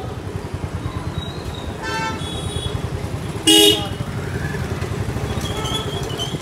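Vehicle engine running with a steady low rumble in slow street traffic. A short, loud horn toot sounds about three and a half seconds in, and a fainter, briefer horn beep about two seconds in.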